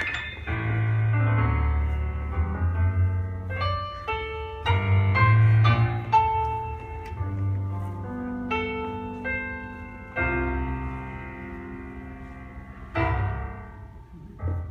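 Instrumental passage of a swing recording: piano over a low bass line, with no singing.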